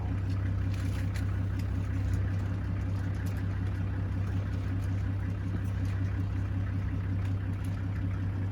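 An engine running steadily at idle: a low, even hum with no change in speed.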